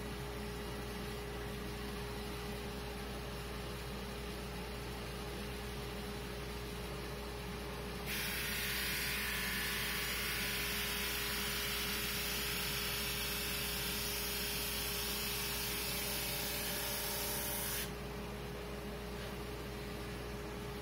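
SuperMax 25-50 drum sander running with a steady hum. About a third of the way in, a loud sanding hiss starts abruptly as a board feeds under the drum, lasts about ten seconds, and stops abruptly when the board clears it.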